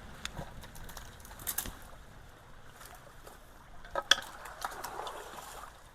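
Water splashing and trickling around culvert debris, with scattered clicks and two sharper knocks, about a second and a half in and again about four seconds in.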